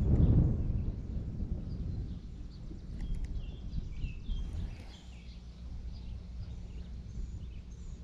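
Several short bird chirps scattered over a low rumble, which is loudest at the very start and fades within the first two seconds.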